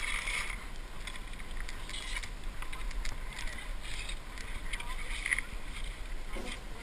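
Ice skate blades scraping and gliding over rough natural lake ice, one swish about every second with the skating stroke.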